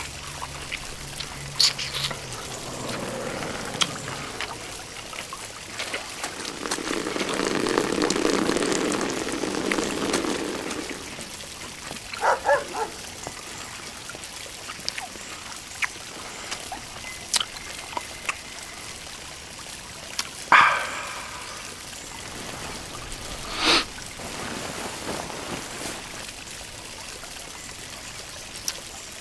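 Fountain water splashing steadily into a stone pool. A few short, sharp pitched sounds come over it, a louder stretch about 7 to 11 seconds in and another near 20 seconds.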